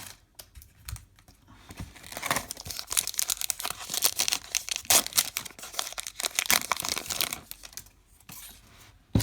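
A foil baseball card pack wrapper being torn open and crinkled by hand, a rapid crackling that runs for several seconds, with a single sharp click near the end.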